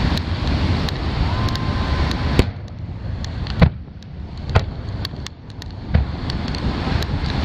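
Distant fireworks shells launching and bursting: about four sharp bangs a second or so apart, with fainter pops between. They sound over a steady low rumble of surf and wind on the microphone, and a brief thin whistle sounds about a second in.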